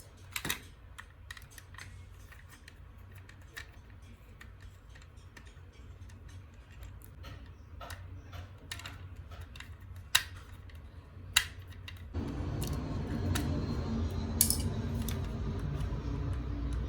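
Small scattered clicks and taps of a screwdriver and the plastic shell of an Xbox One controller being handled while its back screws are undone, with a few sharper clicks. About three-quarters of the way through a louder steady low noise joins in.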